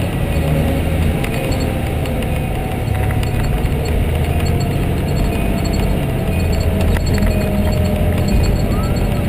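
Cab noise of a 2010 Pierce Velocity fire engine on the move, its 470 hp Detroit Series 60 diesel running with a steady low rumble, and a faint tone slowly falling in pitch.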